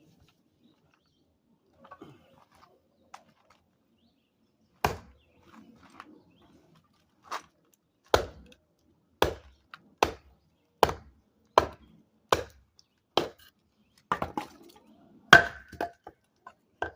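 A large chopping knife chopping into a block of wood: about a dozen sharp strikes, the first about five seconds in and then roughly one a second.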